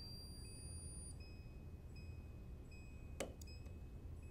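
A single sharp snap of a spot welder firing about three seconds in, welding the shim of a vibrating wire strain gauge to the steel. A faint high-pitched steady tone runs during the first second.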